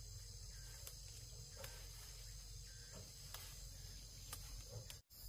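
A faint, steady chorus of insects in the forest, a high continuous drone, with a few light ticks. The sound drops out for an instant near the end.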